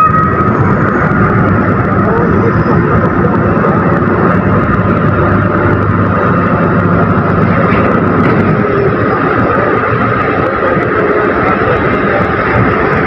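Heavy cargo-handling machinery, a large container forklift and ship's deck cranes, running with a steady, unbroken engine drone.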